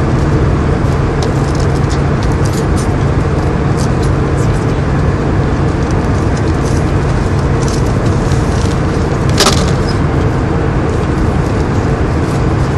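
Steady cabin noise of an airliner in flight: a dense rush of air and engine noise with a steady low hum under it. Faint scattered ticks, and one sharper click about nine and a half seconds in.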